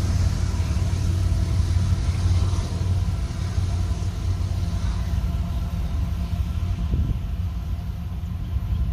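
A large engine running with a steady low rumble and hum. A higher hiss over it fades away through the first half.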